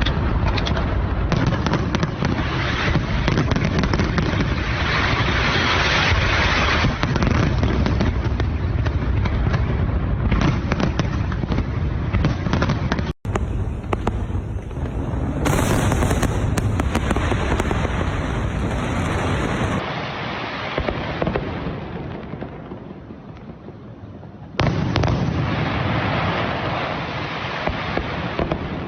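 Large fireworks display: a dense, continuous barrage of bangs and crackles. It thins out about three quarters of the way through, then comes back loud near the end.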